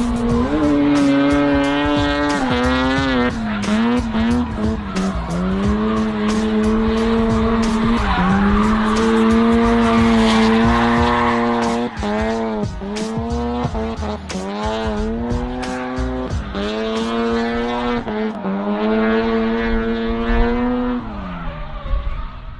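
Carbureted, bridgeported 13B rotary engine in a Mazda Miata drifting, held at high revs with the pitch dropping and climbing again several times, over tyre squeal and skidding. The note falls away near the end.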